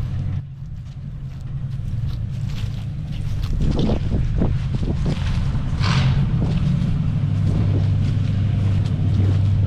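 A vehicle engine running steadily, with scattered knocks and rattles over it from about four seconds in.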